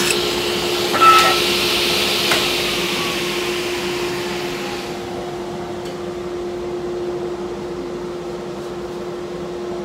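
Table saw and its dust extraction winding down after a kerfing cut: a steady motor hum under a slowly falling whine, with an airy hiss that cuts off about halfway through. There is a sharp knock about a second in and a lighter one a little later.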